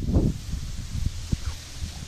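A dog wading in shallow reedy marsh water: rustling and small splashes, over irregular low thumps and rumble on the microphone.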